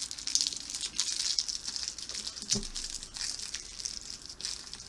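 Plastic candy wrapper crinkling and rustling in the hands as a wrapped nougat candy is being unwrapped, an irregular crackle with a few small clicks.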